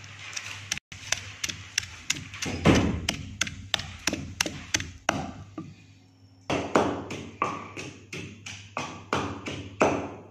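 Wooden pestle pounding green chillies and coriander in a mortar for chutney: a steady run of dull knocks, about four a second, with a short pause partway through.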